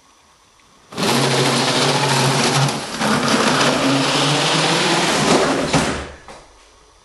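A small electric motor running loudly with a steady low hum. It starts abruptly about a second in, dips briefly near the middle and stops about six seconds in.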